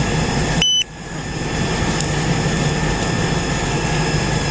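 Steady engine running at idle, a low rumble. Under a second in, one short high electronic beep, after which the sound briefly drops away and fades back in.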